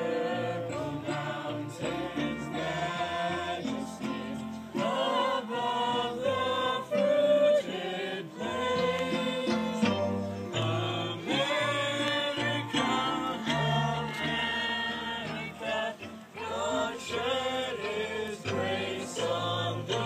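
Youth ensemble of boys and girls singing a patriotic song together in chorus.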